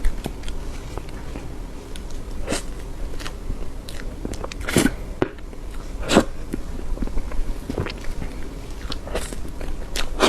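Close-miked eating of soft cream cake: chewing with irregular mouth smacks and clicks, a few of them louder.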